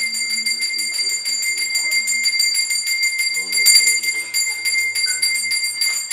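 A single hand bell rung rapidly and without pause, about six strokes a second, in the manner of a worship bell. A faint voice sounds beneath it.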